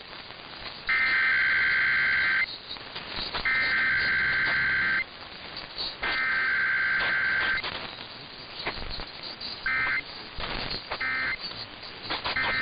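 Emergency Alert System SAME digital header on radio: three shrill, warbling data bursts of about a second and a half each, about a second apart, followed near the end by three short bursts, the end-of-message code, marking a Required Weekly Test.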